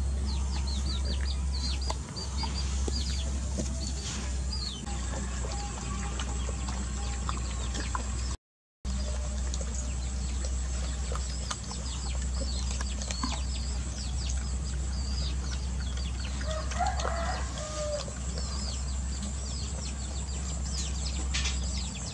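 Birds calling, most likely poultry: many short, high chirps falling in pitch, with a lower clucking call about three-quarters of the way through, over a steady low hum. The sound drops out briefly about a third of the way in.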